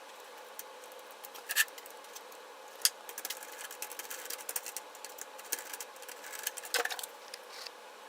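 Irregular small clicks, taps and rattles of things being handled, with sharper knocks about one and a half and three seconds in, over a steady faint hiss.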